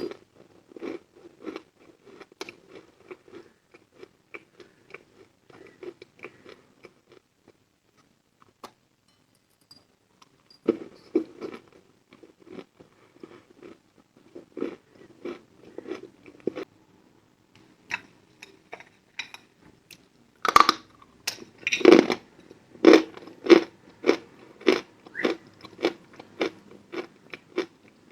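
Lumps of edible chalk being bitten and chewed, a dry crunching. There is a short pause about a third of the way in. Near the end come a few loud bites, then steady rhythmic chewing.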